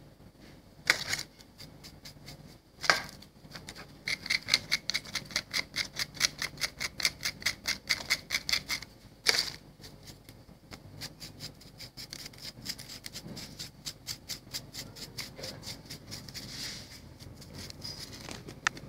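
Small hand-held metal pick scraping and scratching the surface of a stone, in quick repeated strokes about four a second, with a few single sharper scrapes; the strokes are loudest in the middle and then go on more softly.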